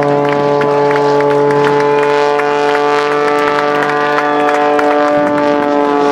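Propeller-driven aerobatic plane's piston engine droning at a steady pitch, held for several seconds and sagging slightly near the end.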